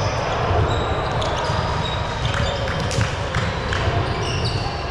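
Indoor volleyball rally sounds in a gym: sneakers squeaking on the court in short high chirps, with sharp ball strikes, the loudest about three seconds in. Players' voices murmur underneath.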